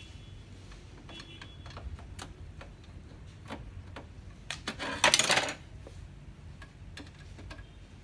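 Screwdriver and small metal screws clicking and clattering against a laser printer's casing as it is taken apart, with a short burst of metallic rattling about five seconds in.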